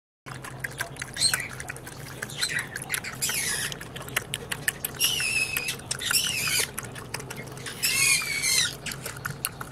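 A small dog lapping liquid from a drinking glass: a quick run of wet tongue clicks and splashes against the glass. Several times a high, wavering squeaky sound rises over the lapping for about half a second.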